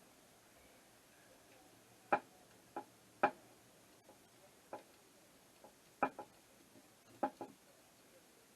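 Sharp metal clicks and taps, about ten of them at uneven spacing, from hand tools working on the screws of a carburettor being taken apart.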